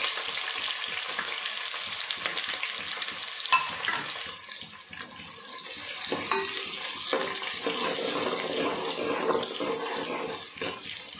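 Sliced onions sizzling in hot oil and ghee in a heavy metal kadai, just after they go in. The sizzle is loudest at first and dies down after about four seconds, while a metal spoon stirs them with a few scraping clicks against the pot.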